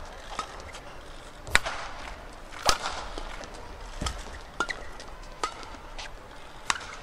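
Badminton rally: a racket striking a shuttlecock again and again, roughly every second, with the two loudest hits about a second and a half and nearly three seconds in. Short shoe squeaks on the court floor come between the hits.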